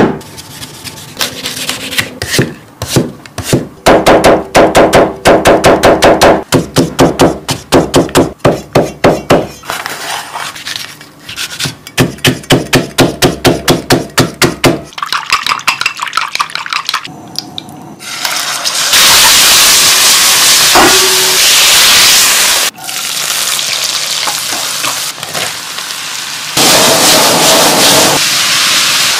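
A cleaver chopping rapidly on a wooden chopping board in fast runs of strokes, shredding vegetables. About two-thirds of the way through it gives way to the loud, steady sizzle of vegetables stir-frying in a hot wok.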